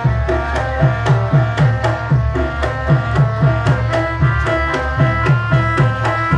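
Javanese gamelan accompaniment for a warok dance: a hand drum beats a fast rhythm of about three to four strokes a second, each low stroke falling in pitch, over steady held tones from the melodic instruments.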